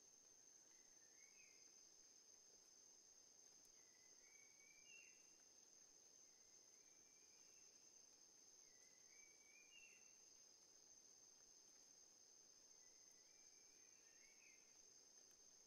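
Very faint nature ambience: a steady high-pitched insect trill, with a short call that rises in steps repeating every four or five seconds.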